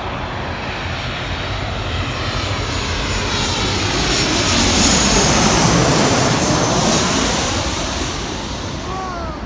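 Airplane passing low overhead: its engine noise swells to a peak about halfway through, then fades.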